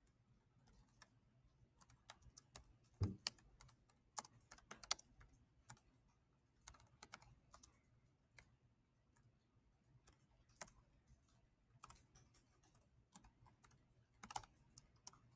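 Faint, irregular clicking of computer keyboard keys as a short sentence is typed, with pauses between runs of keystrokes. There is one heavier knock about three seconds in.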